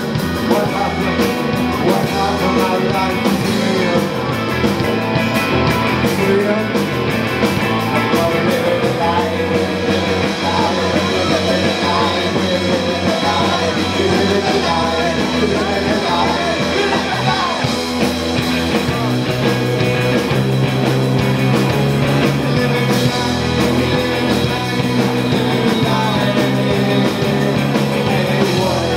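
Rock band playing live: distorted electric guitars, bass guitar and drum kit, with a singer's voice over them.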